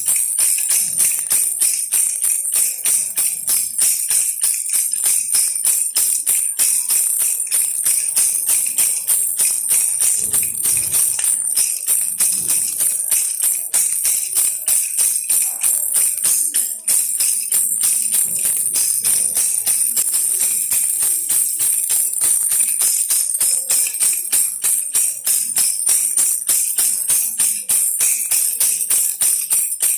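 A baby rattle toy shaken rapidly and continuously, several shakes a second, each giving a bright, high-pitched rattle.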